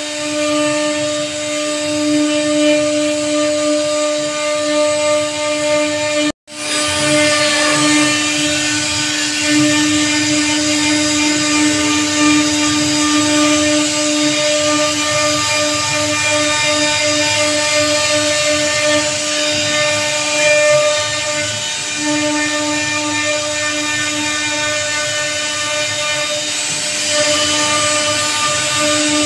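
CNC router spindle running with a steady whine as its bit carves a teak door panel, over the noise of the cut. The sound drops out for a split second about six seconds in.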